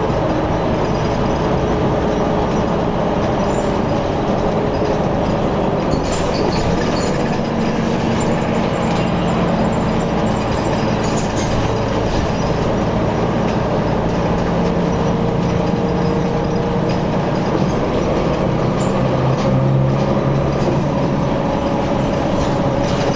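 Steady, loud vehicle noise: engines running with tyre and road rumble, several engine hums slowly drifting in pitch.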